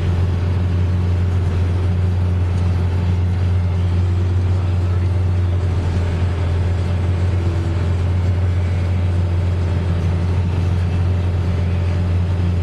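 Ford 8970 tractor's six-cylinder diesel engine running steadily under load, driving a four-row forage harvester as it chops corn. It is heard from inside the tractor cab as a continuous deep drone.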